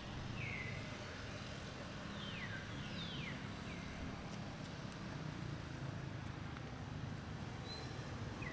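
Steady low outdoor rumble with about six short, high animal calls that glide downward in pitch, scattered through, two of them close together a few seconds in.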